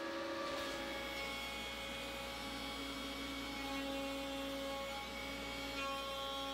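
Sienci LongMill Mk2 CNC router running with a 1-inch surfacing bit fitted: a steady hum with thin whining tones that shift in pitch a couple of times as the machine is jogged.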